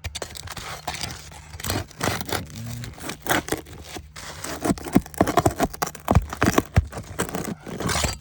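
Roof shingle being pried up and a roofing nail worked loose: irregular scraping, crackling and tearing, with a quick run of sharp clicks and knocks from about the middle to near the end.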